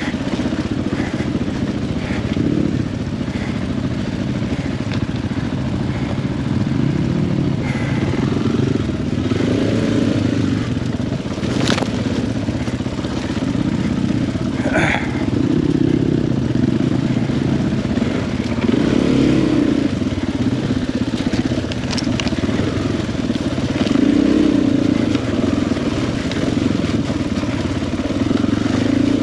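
KTM 500 EXC-F single-cylinder four-stroke dirt bike engine running on a trail ride, the revs rising and falling with the throttle. A couple of short sharp knocks are heard about halfway through.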